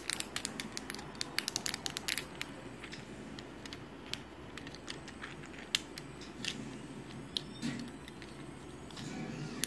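Fidget cube being clicked and fiddled with: a quick run of sharp small clicks, thinning out after about two and a half seconds to scattered single clicks.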